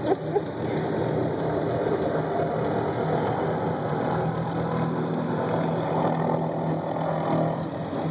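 Helicopter with a tree-trimming saw slung beneath it, a steady mechanical drone of engine and rotor, heard through a car's rain-spotted window.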